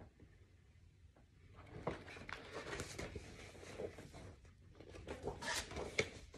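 Rustling with light clicks and taps as a picture book is moved about and handled, starting about a second and a half in after a near-silent start.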